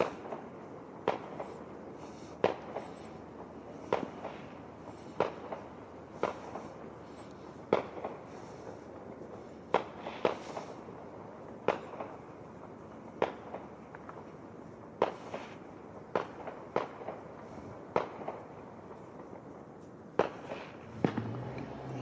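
Fireworks and firecrackers going off: single sharp bangs at irregular spacing, about one a second, with no let-up.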